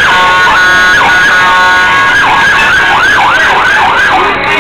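Electronic emergency-vehicle siren in a fast yelp, sweeping up and down about three times a second. From just after the start until about halfway through it switches to a steady blaring horn tone with a couple of single sweeps, then goes back to the yelp.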